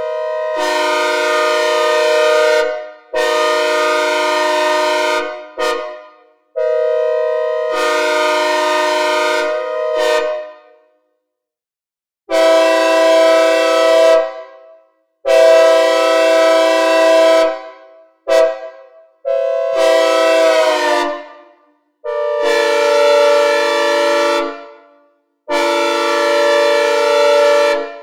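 Synthesized recreation of a Nathan K5L five-chime train horn, the mixed-bell 'hybrid' horn of MBTA locomotive 1055, sounding a chord in a series of long blasts of two to three seconds each, broken by a few short toots. Each blast fades out with a reverb tail.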